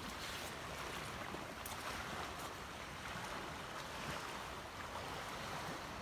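Fast-flowing river water rushing steadily, with a few light crunches of footsteps on dry leaf litter.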